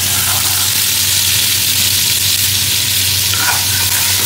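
Wet green paste of coriander, garlic, ginger and peppers sizzling loudly in hot oil in a large aluminium pot, a steady hiss. It is this loud because the water in the paste is hitting the oil.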